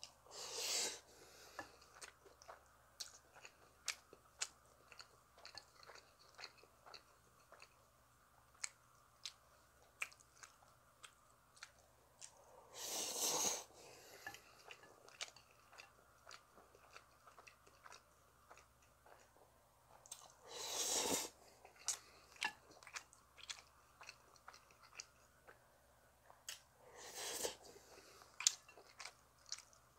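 Close-miked chewing of instant black-bean noodles, with wet lip smacks and small clicks throughout. Four loud slurps of about a second each break in: one right at the start, then after about 13, 21 and 27 seconds.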